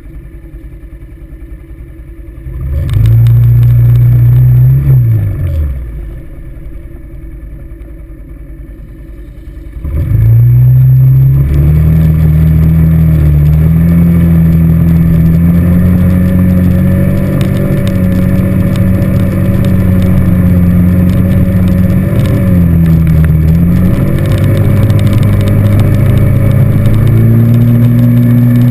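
ATV engine idling, revving briefly and dropping back to idle, then from about ten seconds revving up and running steadily under load as the quad drives along a dirt track, its pitch dipping and rising a few times with throttle and gear changes.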